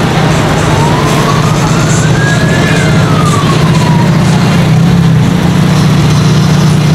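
A siren wailing: one slow rise in pitch over about two and a half seconds, then a fall, over a steady low drone.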